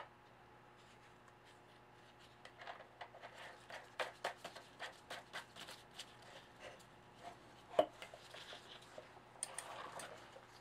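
Light clicks and taps of small metal parts being handled and fitted at a moped's rear wheel hub and sprocket, with one louder metallic clink about eight seconds in and soft rustling near the end.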